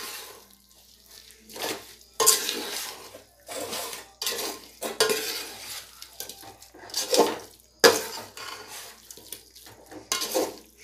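Steel slotted ladle scraping and knocking against a stainless steel pot while thick chicken masala is stirred, in irregular strokes starting about two seconds in.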